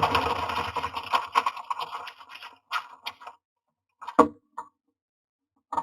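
Scratching, rustling and clattering inside a wooden nest box, with several sharp knocks later on, the loudest about four seconds in: a common myna moving about in the box and its nest material.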